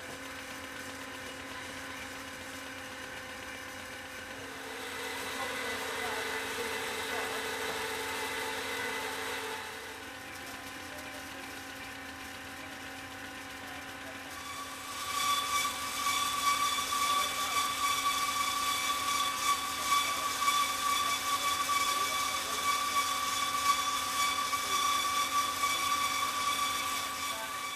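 Claxton Rapier hydraulic bandsaw cutting through a thick steel tubular: a steady mechanical whine with a hiss of the blade in the steel. About halfway through it grows louder and a higher whine comes in.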